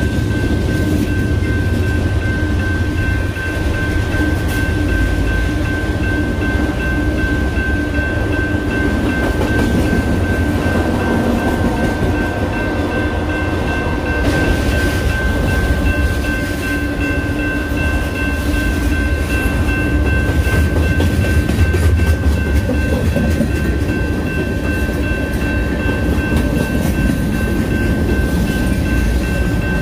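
Freight train rolling past at close range, a steady rumble of wheels on rail as the cars go by, with the last of the diesel locomotives at the start. A thin, steady high tone runs over it throughout.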